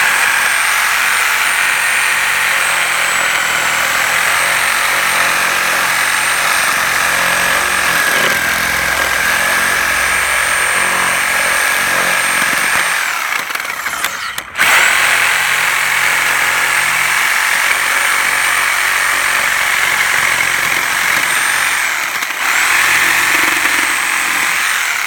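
Handheld electric power tool running at speed and cutting through the wood of an old rocking chair, with a steady high whine. It stops briefly about 13 seconds in and starts again about a second and a half later.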